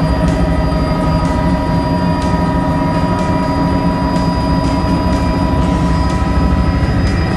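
Helicopter engine and rotor running steadily, heard from inside the cabin: a low roar with a steady high whine over it.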